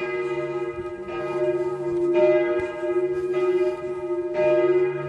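A church bell ringing, struck about once a second, each stroke ringing on under the next.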